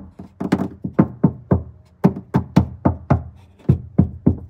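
Knuckles rapping quickly and repeatedly on the GR86's door sheet-metal panel, about three or four knocks a second, each with a short pitched ring: a knock test of how much the Kilmat sound-deadening mat damps the panel.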